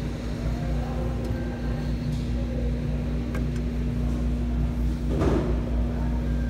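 Steady low hum of indoor background noise with one constant droning tone, and a brief rustle about five seconds in.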